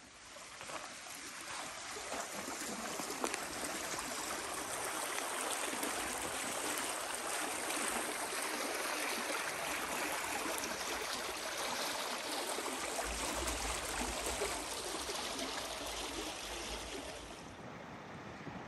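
Steady rush of running water, like a flowing stream, building over the first few seconds and dropping away near the end.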